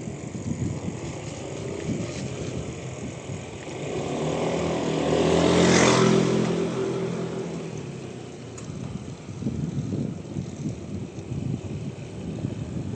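A motor vehicle approaches and passes close by, its engine and tyre noise swelling to a peak about six seconds in and then fading away. Wind buffets the microphone throughout.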